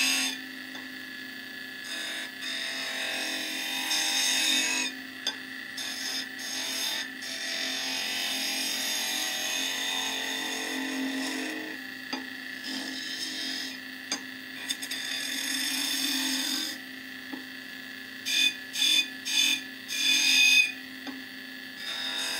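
A skew chisel cutting a spinning wooden spindle on a wood lathe, a rasping hiss over the lathe's steady hum. The chisel shapes a bead in several long passes, then in a run of short, sharp cuts near the end.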